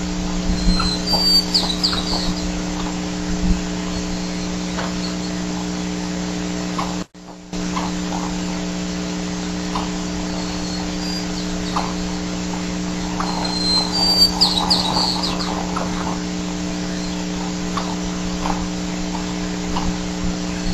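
Steady electrical hum on a nest camera's sound feed, with short high bird chirps twice, about a second in and again around fourteen seconds in. The sound cuts out for a moment about seven seconds in.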